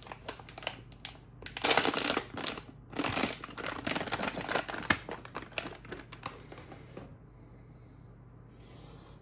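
Hands handling server parts: a run of irregular clicks and short rustling, which stops about seven seconds in.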